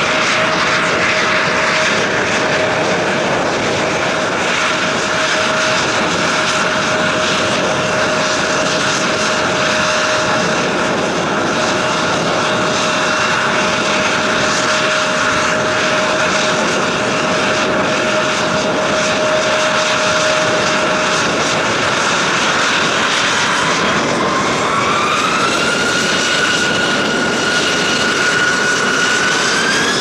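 Jet engines of an Embraer E-Jet airliner (GE CF34-8E turbofans) running near idle with a steady whine as it taxis and lines up. About two-thirds of the way in, a rising whine starts and levels off, then climbs again near the end as the engines spool up for takeoff.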